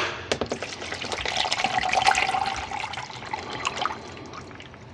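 Water poured from a plastic bottle into a paper cup, splashing and glugging irregularly; the pour grows louder, then dies away about four seconds in.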